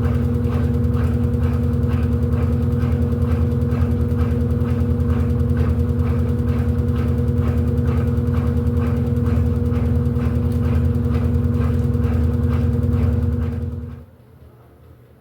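Electrolux LED14 14 kg washing machine running with a steady hum and a regular beat about three times a second, then cutting off abruptly near the end.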